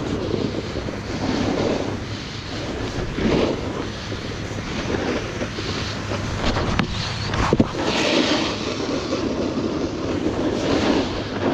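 Rushing wind noise on the microphone mixed with a snowboard scraping and sliding over snow, surging and easing in waves, with a couple of sharp clicks about seven seconds in.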